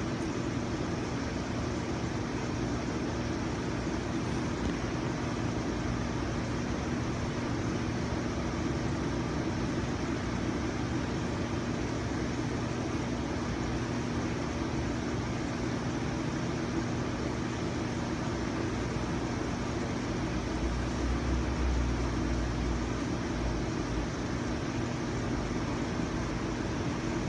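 Steady mechanical hum with an even rushing noise, and a low rumble that swells about twenty seconds in.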